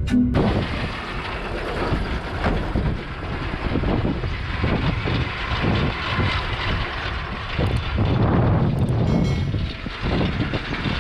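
Tractor engine running, a steady rough rumble with an uneven pulsing texture.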